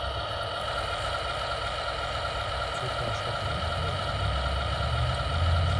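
Electric drive of an RC crawler tractor model running: a steady motor-and-gearbox whine over a low rumble that grows louder near the end.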